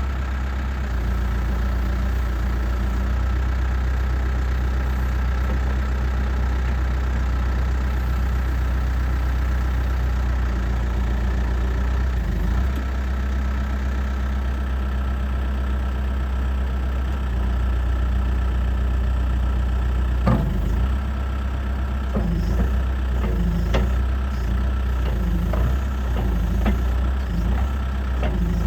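Diesel engine of a 2005 Case 580 Super M Series 2 backhoe loader idling steadily. In the last third come several sharp clanks or knocks.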